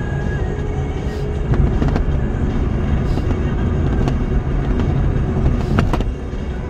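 Motor vehicle running on the road: a steady low rumble, with two sharp clicks near the end.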